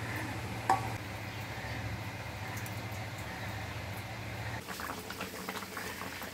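A steady low hum with a short knock under a second in, then from about two-thirds of the way through the fish curry bubbling at the boil in a wide metal pot.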